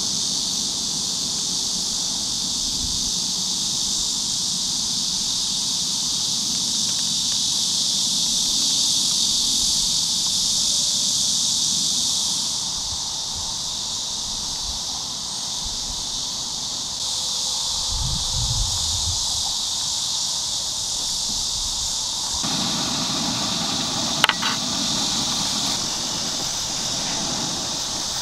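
Steady high chorus of insects. In the last few seconds broth in a shallow pan bubbles at a boil, with one sharp click a few seconds before the end.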